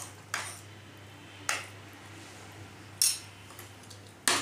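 Steel spoon stirring thick rice pudding in a metal pot, clinking and scraping against the pot's side four times, about a second apart, over a faint steady low hum.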